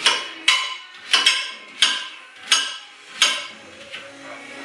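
Kitchen knife chopping raw pumpkin into chunks, the blade striking the cutting board in a series of sharp chops about every half second to three-quarters of a second, the last one about three seconds in.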